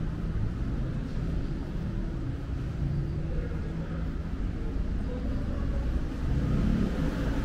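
Street traffic: motor vehicle engines running with a steady low hum, swelling a little about six seconds in.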